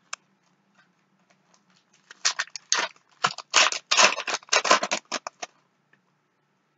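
Foil trading-card pack wrapper being torn open and crumpled in the hands. A single click comes at the start, then about two seconds in a dense run of crinkling crackles lasts about three seconds.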